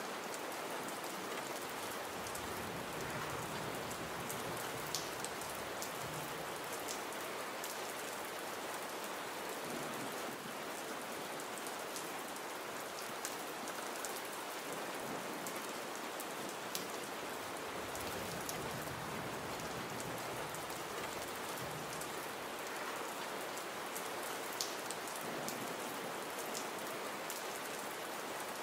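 Gentle rain falling steadily, an even hiss with now and then a single drop ticking out more sharply.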